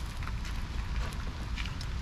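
Wind rumbling on the microphone over a crackling wood campfire, with scattered faint ticks.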